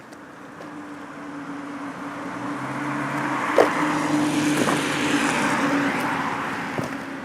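A car passing by: engine hum and tyre noise swell to a peak midway and then fade, with a sharp click about halfway through.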